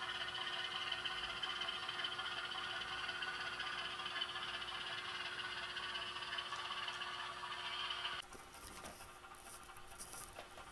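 HO scale diesel switcher's sound decoder playing a diesel engine sound through the locomotive's small speaker as it moves slowly. The sound is a steady engine drone that cuts off suddenly about eight seconds in.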